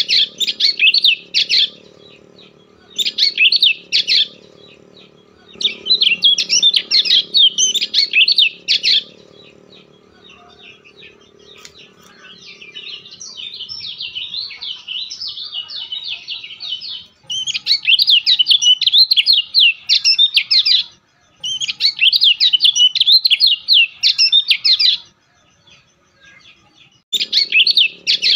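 A bird chirping in rapid, loud bursts lasting one to three seconds each, with a softer stretch of continuous twittering in the middle. A low steady hum runs under the first third and comes back near the end.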